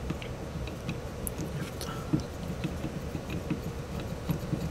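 Light handling noise of a Mitutoyo crystal press: scattered small clicks and soft knocks as the white press dies are fitted and adjusted on its spindle and anvil by hand, over a faint steady hum.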